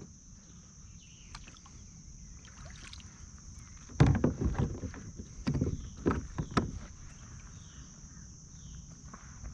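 Kayak paddle strokes in the water, a handful of them about half a second apart, starting about four seconds in, while the boat is turned back into position. A faint steady high hiss runs underneath.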